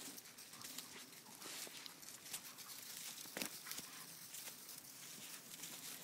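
Dogs moving about in snow-dusted dead leaves: irregular rustling and crunching underfoot, with one sharper click about three and a half seconds in.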